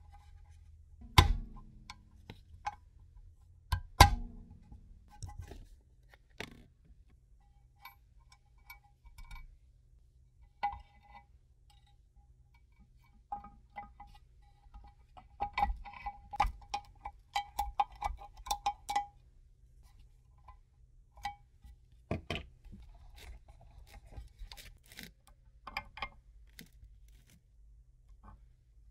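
Metal tools and parts knocking and clinking on a workbench: two sharp knocks about a second and about four seconds in, then lighter clinks with a ringing tone that pulses on and off in the middle stretch.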